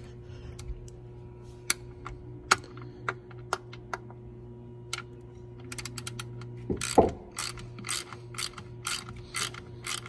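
Ratcheting wrench clicking as it tightens the 13 mm bolts of the impeller pump cover. The clicks come singly and spaced apart at first, then in a quick run in the second half, over a steady low hum.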